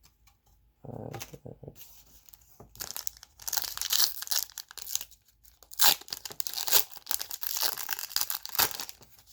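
A Donruss football trading card pack wrapper being torn open and crinkled, with sharp crackles of the wrapper loudest from about the middle to near the end.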